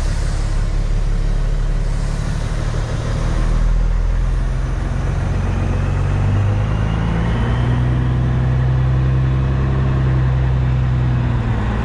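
Caterpillar C15 inline-six diesel of a Peterbilt 379 running steadily at low speed, heard from inside the cab as the truck creeps through a tight turn.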